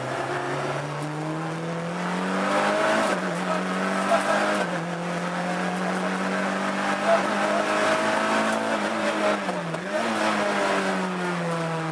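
Peugeot 306 rally car's four-cylinder engine heard from inside the cabin under hard acceleration on a stage. The revs climb over the first few seconds, with short dips near three and four and a half seconds, hold high, dip again near ten seconds, then fall away toward the end, over steady road and tyre noise.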